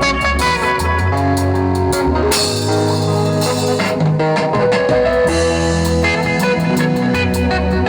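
Band music: guitar and bass lines over a drum kit keeping a steady beat.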